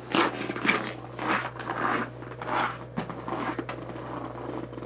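Footsteps crunching through snow, about two steps a second, over a steady low hum, with a sharp click about three seconds in.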